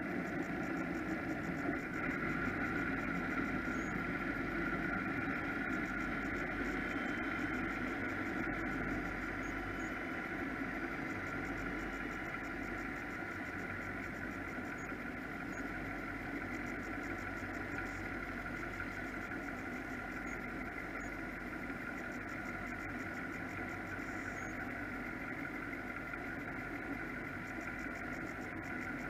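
Powerboat engines idling steadily, an even drone with no revving.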